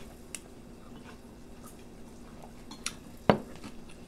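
Light clicks of chopsticks and tableware against the pan and dishes, with one sharper knock about three seconds in.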